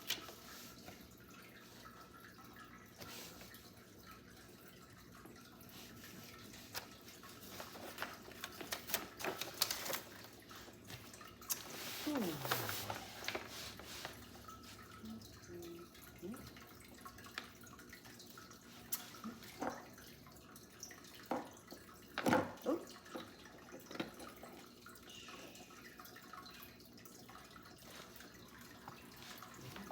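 Scattered clicks, taps and rustles of hands handling packaging and leather goods, with a few brief squeaky sounds.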